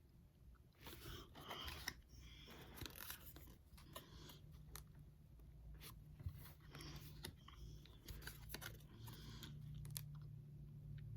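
Faint crinkling and rustling in irregular bursts as a Pokémon card booster pack's foil wrapper and the cards are handled.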